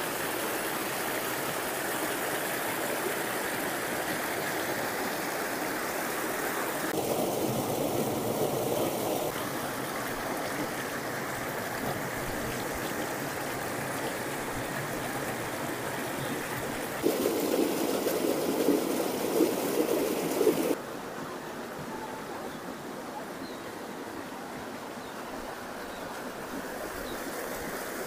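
A small waterfall and a shallow stream running over rocks and boulders: a steady rush and splash of water. The sound changes suddenly a few times as the view cuts between shots, and is louder for a few seconds starting about 17 seconds in.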